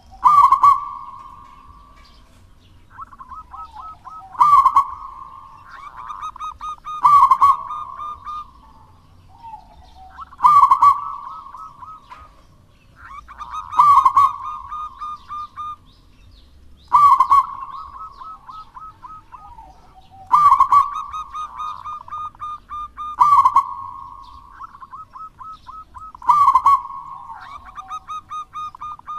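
Zebra dove (perkutut) cooing its song over and over: phrases about every three seconds, each a loud coo followed by a quick run of short stuttering notes.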